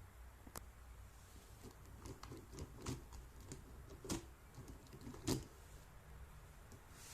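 Faint scattered clicks and knocks, as of small objects being handled, over a low steady hum; the two loudest come about four and about five seconds in.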